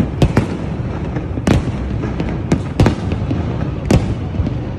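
Fireworks display: aerial shells bursting in quick succession, several sharp bangs over a continuous low rumble of further explosions.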